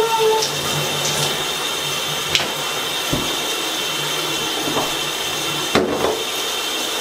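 Shower running steadily, a constant hiss of water, with a short knock about two and a half seconds in and a louder knock near six seconds.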